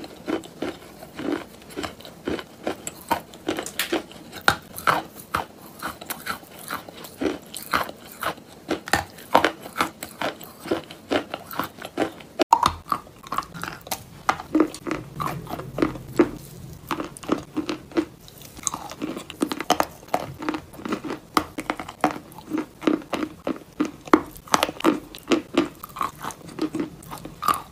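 Close-miked biting and chewing of dry clay chunks: many sharp, crumbly crunches, several a second. The sound changes abruptly about halfway through, where two crunching clips are spliced together.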